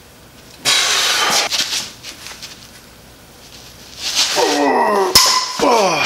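A man straining and grunting as he levers on a hardened 5160 high-carbon steel knife blade held in a bench vise with locking pliers. A little after five seconds the blade snaps with one sharp, ringing crack.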